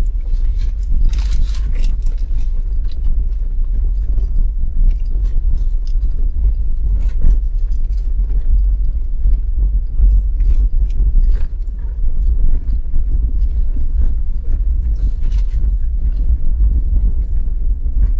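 A vehicle driving: a steady low rumble with frequent knocks and rattles.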